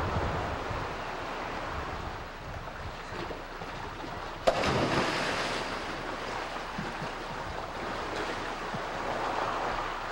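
Open-sea wash and wind buffeting the microphone, a steady rushing noise. A single sharp knock comes about halfway through, followed by a brief louder surge.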